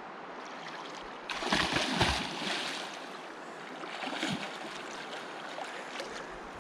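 Mountain river running steadily, with a loud splash about a second in as a person plunges into the cold water, then a smaller splash a couple of seconds later.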